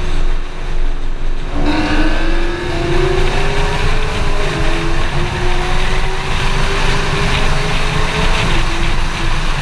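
Sixth-generation Camaro SS's V8 engine pulling under acceleration, louder after about a second and a half, its pitch climbing slowly with two brief dips.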